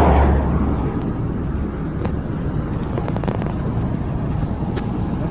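Rustling handling noise and a low rumble on a handheld phone microphone as it is moved about, with a few faint clicks further on.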